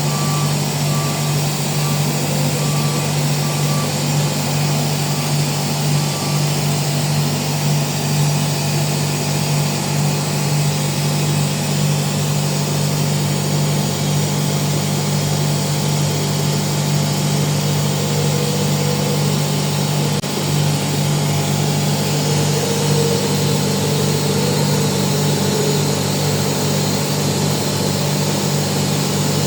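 A large machine running with a loud, steady hum. A repeating electronic beep sounds over it for the first several seconds, then stops.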